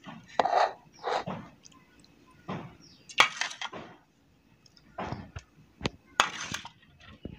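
Scattered, irregular clinks and scrapes of steel kitchenware while hot ghee is poured onto ground urad dal flour mixed with jaggery in a steel vessel.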